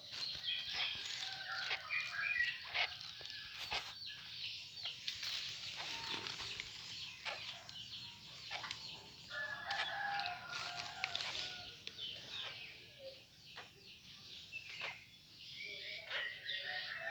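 White-rumped shama (murai batu) making quick chirps and short clicking calls. A rooster crows in the background for about two seconds, roughly ten seconds in.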